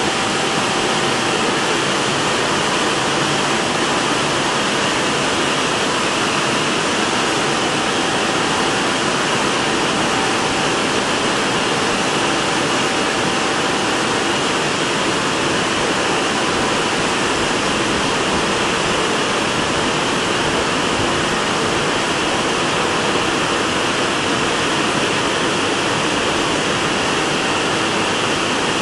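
A WashTec rollover car wash at work: a steady rush of water spray and spinning brushes as the gantry moves along the car, with a faint high tone that comes and goes.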